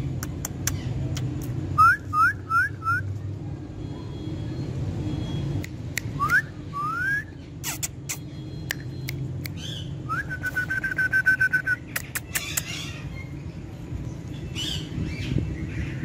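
Indian ringneck parakeet whistling. Four quick rising whistles come about two seconds in, two longer rising glides around six seconds, and then a rising whistle that runs into a held, trilling note for over a second about ten seconds in. A steady low rumble and scattered sharp clicks run underneath.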